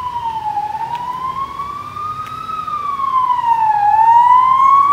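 Siren of an escort vehicle wailing: one tone sweeps slowly up and down in pitch, falling twice and rising twice, and grows louder as it approaches.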